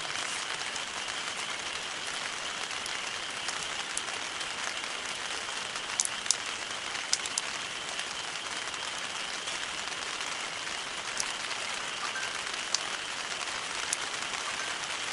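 Wood campfire burning with a steady hiss and crackle, broken by about eight sharp pops, the loudest around the middle.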